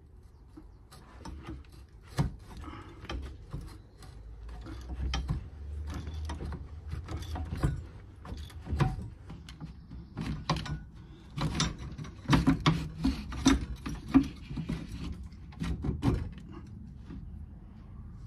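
Irregular metallic clicks and knocks of hand tools working on car parts, busiest a little past the middle and stopping near the end.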